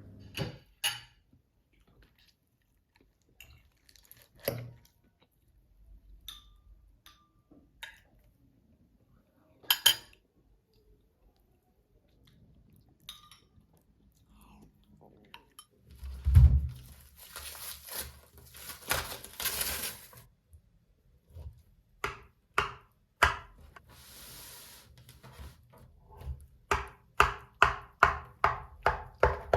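Kitchen prep sounds: scattered clicks and clinks of dishes and utensils, a heavy thump about halfway through followed by a few seconds of rustling, then near the end a knife chopping on a cutting board at about three strokes a second.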